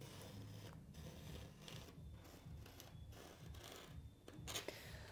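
Faint strokes of a marker pen writing on a sheet of vinyl wrap film, coming in short stretches with brief pauses between them.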